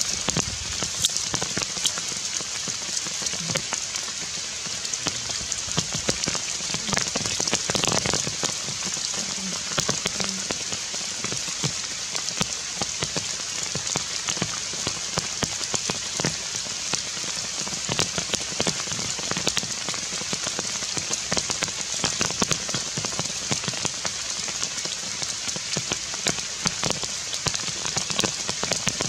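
Heavy rain falling on forest leaves: a steady hiss with many small drop ticks on top.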